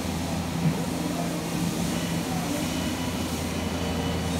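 Steady low electrical and mechanical hum of a powered-up You-Ji YV-1200 CNC vertical turning center standing idle, with one short click less than a second in.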